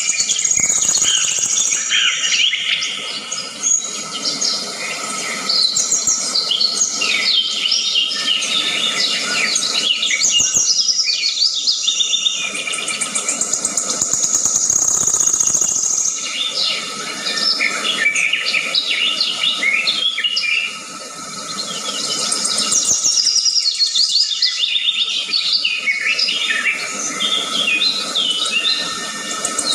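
A chorus of many birds chirping and calling at once, short rising and falling notes overlapping continuously, over a steady high insect hum.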